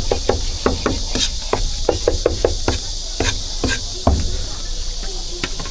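Cleaver chopping braised pork on a wooden board for roujiamo: irregular sharp knocks, about two or three a second, the loudest about four seconds in, over a steady hiss.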